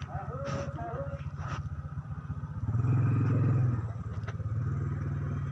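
A small engine running steadily at idle, its even pulsing hum growing louder for about a second in the middle.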